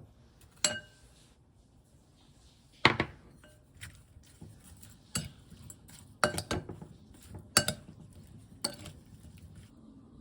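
Dishes clinking: about eight separate sharp knocks and clinks, a few of them ringing briefly.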